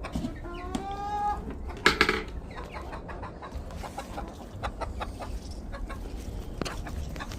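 Chickens clucking, with one drawn-out call rising in pitch in the first second and a brief loud noise about two seconds in, then scattered short clucks.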